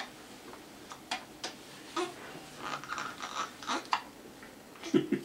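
A four-day-old baby hiccuping: short, soft clicks and small sounds about once a second, the loudest near the end.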